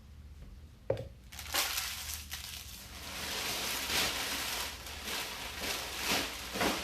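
A sharp click, then several seconds of crinkling and rustling as packaging is handled, coming in uneven surges.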